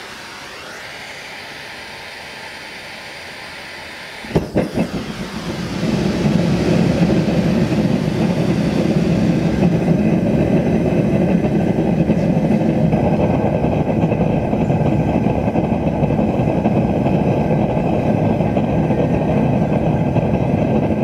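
Gas hissing from a propane hand torch and the opened burner, then a few sharp pops about four seconds in as a propane forge's Frosty T-burner lights. After that the forge burner burns with a loud, steady rush of flame. Its sound shifts a little around ten seconds in as the burner's needle valve is adjusted.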